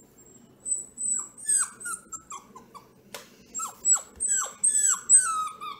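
Bluetick beagle puppy yipping in a quick run of short, high yelps, each falling in pitch, with one sharp click about three seconds in.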